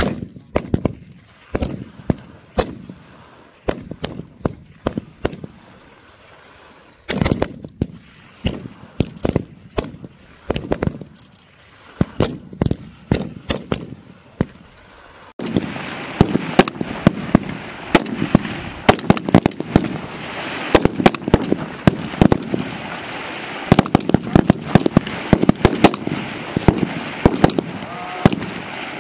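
A line of M4 5.56 mm rifles firing single shots at irregular intervals on a rifle range, several shooters at once. The shots come sparsely at first, then from about halfway through they come faster and overlap.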